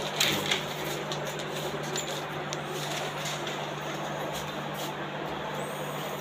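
Steady low hum under a constant noisy background, with a few sharp clicks in the first half second.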